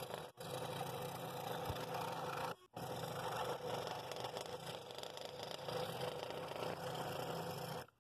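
Scroll saw running, its number 5 Pegas modified-geometry blade making a bevel cut through cherry wood: a steady buzzing drone with a hum. It breaks off briefly twice and stops just before the end.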